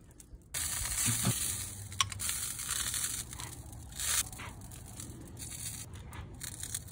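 Loud, steady sizzling starts suddenly about half a second in, as liquid is poured into a hot cast-iron skillet of barbecue sauce on a charcoal grill. A few sharp clicks sound through it.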